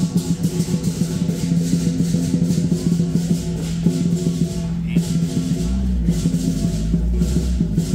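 Music with shaker-like percussion and a steady beat over held low notes.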